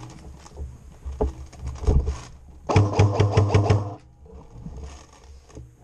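Airsoft electric gun firing a full-auto burst lasting just over a second, the gearbox motor whirring under a rapid even clatter of shots, about halfway through. A few separate knocks come before it.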